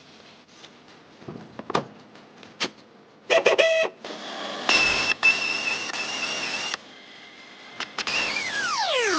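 Mechanical workshop tool sounds: scattered clicks and knocks, a brief loud whir, then a hissing whir lasting about two seconds. Near the end a motor's pitch falls steeply and settles into a steady running tone.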